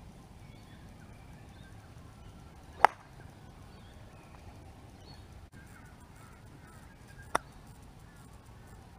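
Two golf shots, each a single sharp click of the club head striking the ball: a loud one a little under three seconds in and a quieter one about four and a half seconds later. Faint bird calls in between.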